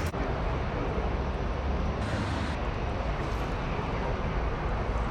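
Steady outdoor noise: a low rumble under a hiss, with abrupt shifts in the hiss about two seconds in.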